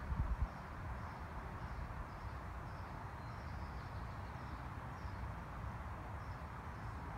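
Breeze rustling through tree leaves as a steady hiss, with wind buffeting the microphone briefly at the very start. A faint high chirp repeats about twice a second throughout.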